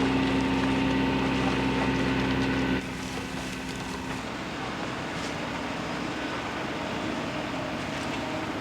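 A motor running steadily with an even hum, stopping abruptly about three seconds in, leaving a quieter steady background noise.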